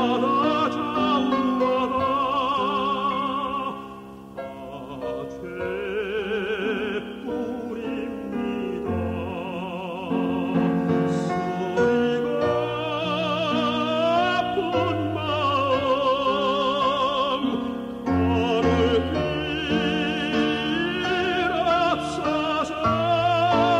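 A tenor singing a slow song in operatic style, holding notes with wide vibrato, over instrumental accompaniment.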